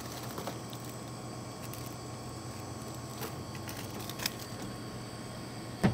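Steady low hum of shop refrigeration units, with a few faint clicks and a short knock near the end.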